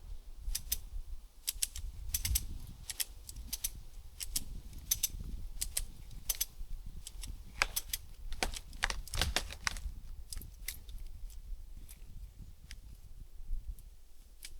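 Ratchet strap being cranked to tension the rigging on a leaning tree, its ratchet pawl giving sharp metallic clicks in irregular bunches with each stroke of the handle.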